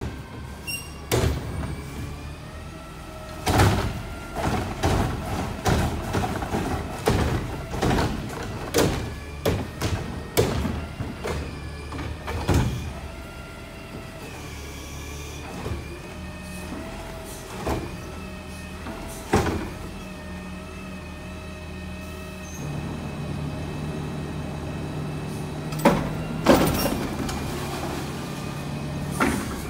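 Front-load garbage truck with a Curotto Can: the diesel engine runs while brush and yard waste go into the can with repeated thuds and clatter over the first dozen seconds. Later the engine speeds up as the hydraulic arms raise the can over the cab, and a couple of loud bangs come near the end.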